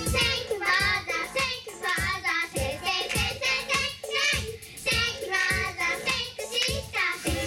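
A group of young girls singing an upbeat idol pop song into microphones over a backing track with a steady beat of about two strokes a second; the fuller instrumental backing comes back in near the end.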